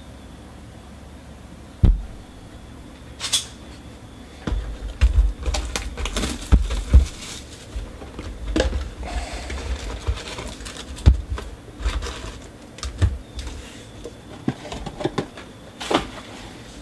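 A cardboard Panini Contenders basketball card box being handled and opened on a tabletop, with a sharp knock about two seconds in, then a busy run of taps, clicks and rustling as foil card packs are taken out and set down in a stack.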